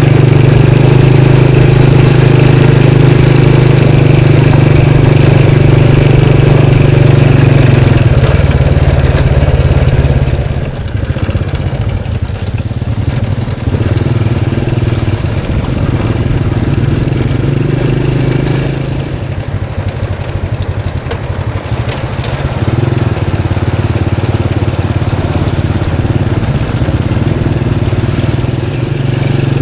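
A vehicle's engine running steadily while driving. Its level drops about ten seconds in, comes back up, then drops again around twenty seconds before picking up.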